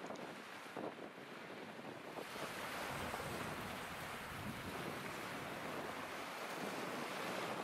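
Wind blowing across the microphone with small estuary waves lapping at the shore. The rush of wind grows louder about two seconds in and then holds steady.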